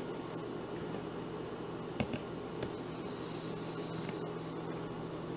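Steady low hum and hiss of room noise, with a sharp click about two seconds in and two fainter clicks just after.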